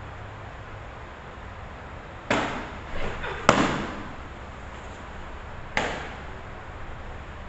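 Sharp smacks of a pitched softball meeting the catcher's leather mitt and gear, each ringing on briefly. One comes about two seconds in, a smaller one and then the loudest about a second later, and a last one near six seconds.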